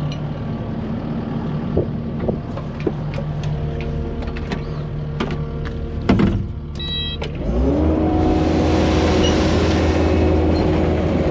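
An idling machine engine with a few scattered clicks and knocks. About seven and a half seconds in, an electric motor winds up and then runs steadily and louder. This is a dump trailer's hydraulic pump tipping the bed to empty its load.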